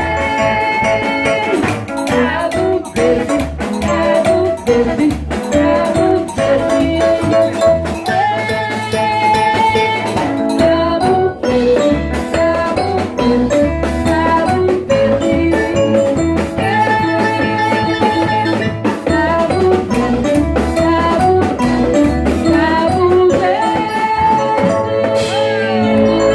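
Live dance band playing, with drum kit, congas and bass guitar under a melody line.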